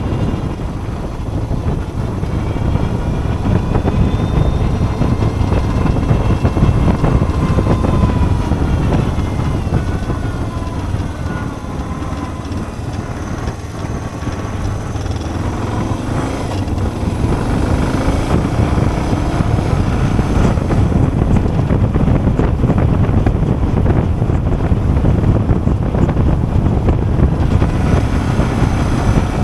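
Suzuki DR650's single-cylinder four-stroke engine running under way. Its pitch falls about ten seconds in and climbs again a few seconds later, over a steady low rumble.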